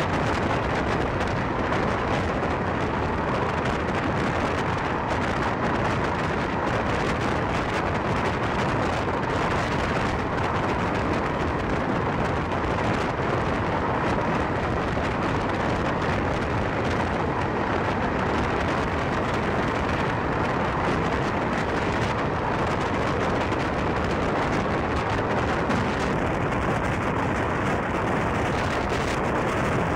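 Steady roar of wind and wheel-on-rail running noise from an Indian Railways express coach travelling at about 115–120 km/h, with a train on the parallel track alongside.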